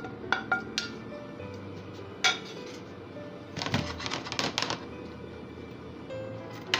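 Background music with a utensil clicking and scraping against a square non-stick pan of sautéed seafood. There are a few light clinks at first, a sharper one about two seconds in, and a quick run of them around the middle.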